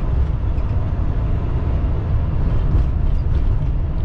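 Steady low rumble of a semi-truck's engine and road noise heard from inside the cab while driving.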